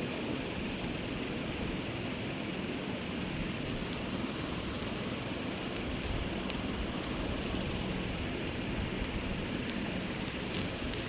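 A steady, even rushing noise with a few faint ticks over it.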